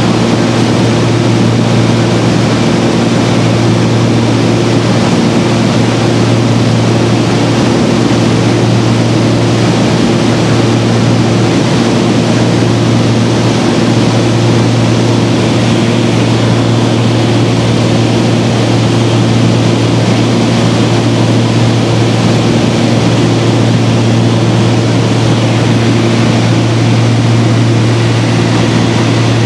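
Twin-engine Beechcraft Baron's piston engines and propellers running steadily in flight, heard from inside the cabin as an even, loud drone with a strong low hum and a few steady higher tones above it.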